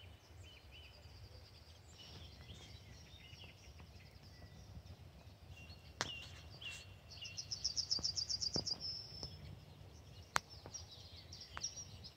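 Wild birds singing faintly: scattered short high chirps and whistles, and a fast high trill lasting about two seconds, about seven seconds in. A faint low rumble underneath.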